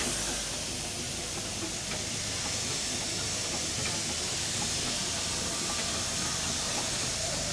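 Steady hiss of steam escaping from a steam road roller.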